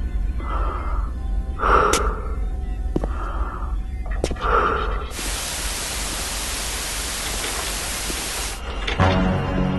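A burst of electronic static hiss, steady and even, lasting about three and a half seconds from halfway through and cutting off suddenly. Before it come soft, evenly repeating sounds with a few sharp clicks. Low sustained music tones start near the end.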